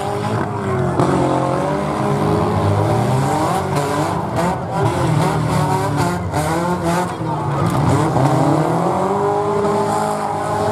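Several four-cylinder demolition derby cars revving at once, their engine pitches rising and falling over each other as they accelerate and back up, with a few sharp knocks near the middle.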